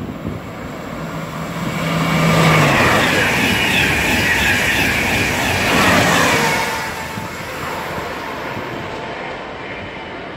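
Thalys high-speed electric train passing at speed: a rush of wheels and air that builds for about two seconds, stays loud for several seconds, then dies away with a tone falling in pitch as the train recedes.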